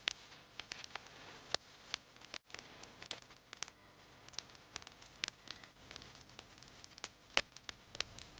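Wood fire in a fireplace crackling: irregular sharp pops and snaps over a faint hiss.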